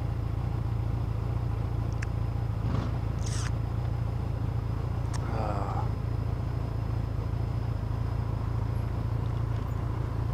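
Motorcycle engine idling steadily, a low even drone, with a couple of faint clicks.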